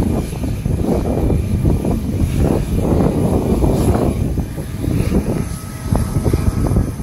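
Airbus A350-1000's Rolls-Royce Trent XWB turbofans at low taxi power as the airliner rolls past close by: a loud, steady, rough rumble with a faint thin whine above it.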